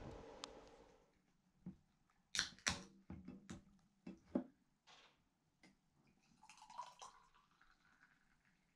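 Faint knocks of a drink can and glass being handled and set down on a wooden table, then Asahi Dry Zero poured from the can into a glass near the end.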